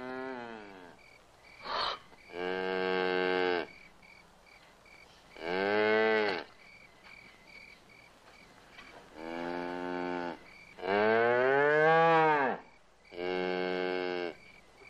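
A cow lowing six times in drawn-out calls of about a second each, some held level and some rising and falling in pitch. Crickets chirp steadily behind them.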